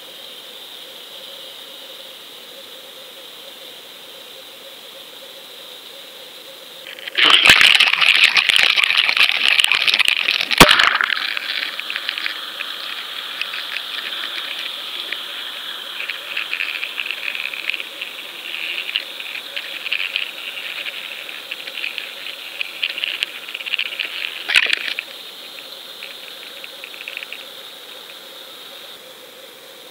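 Underwater sound picked up by a GoPro in its waterproof case: a steady hiss, broken about seven seconds in by loud crackling and clattering against the case with a sharp knock. Softer irregular scraping and ticking follows, ending with another sharp knock.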